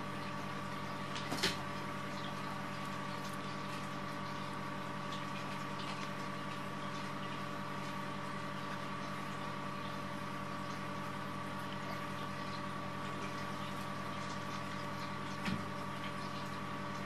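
Steady machine hum with an even hiss, broken by a brief sharp click about a second and a half in and a short faint sound near the end.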